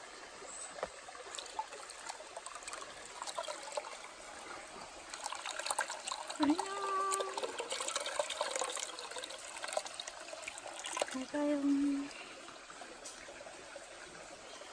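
Stream water splashing and trickling as a plastic basket of small fish is dipped and tipped into the shallow current, the splashing busiest in the middle.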